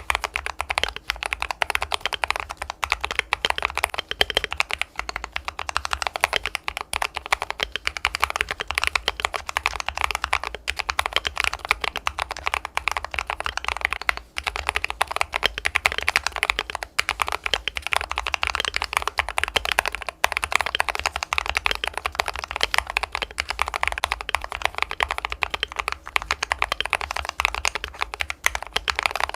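Continuous fast typing on a fully lubricated Balhae Blue mechanical keyboard: a dense, steady stream of key-press clacks.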